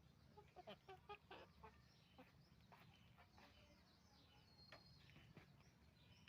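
Chickens clucking at a low level, with a quick run of louder clucks around a second in and scattered calls after.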